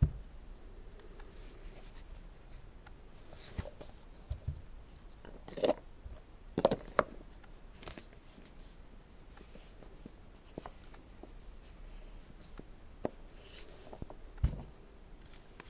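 Painted wooden nesting doll halves being handled: scattered light wooden knocks and clicks as the halves are twisted apart, fitted together and set down, the loudest a few knocks in the middle. Soft rubbing of the wooden pieces in the hands between the knocks.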